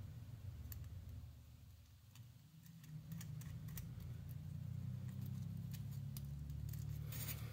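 Small steel nut and washer being turned by hand onto a bolt through a circuit board, giving scattered faint metallic clicks and ticks, with a quick cluster of clicks near the end. A low steady hum lies underneath.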